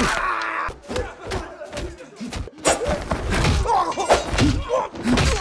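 Kung fu film fight-scene sound effects: a rapid run of punch and kick impacts, with short shouts and grunts between the blows.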